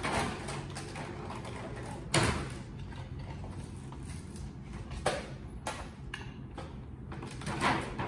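Clear plastic packaging tray being handled and knocked against the floor: a few sudden clatters and rustles, the loudest about two seconds in, over a steady low hum.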